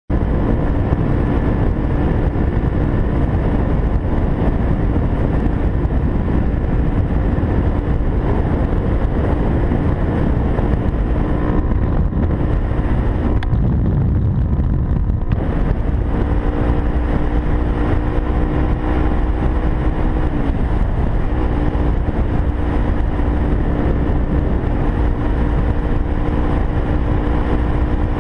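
Kawasaki Ninja 250R's parallel-twin engine running at a steady highway cruise, mixed with wind and road rush. The engine note holds steady, with a brief lull about halfway through and a short dip in pitch about two-thirds of the way through before it settles again.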